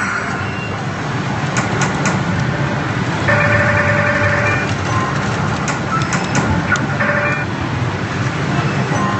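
Loud, steady pachinko-parlor din of many machines. Over it an Another God Hades pachislot machine sounds electronic tones twice and gives a few sharp clicks as its games are played.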